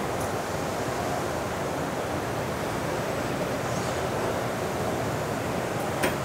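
Steady, even background din of a busy exhibition hall, with one sharp click near the end.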